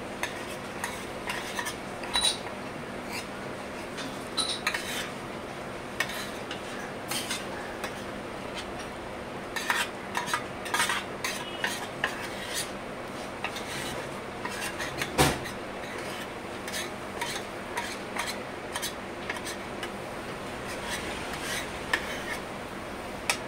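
Steel spoon scraping and clinking against a stainless steel thali plate, scooping up leftover gravy from a compartment in irregular scrapes and taps, one sharper clink about fifteen seconds in, over a steady background hum.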